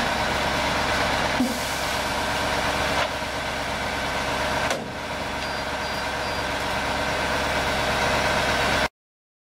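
Diesel engine of a KAMAZ 43118 crane truck running steadily at idle, with short knocks and small drops in level about 1.5, 3 and 4.7 seconds in. It cuts off abruptly near the end.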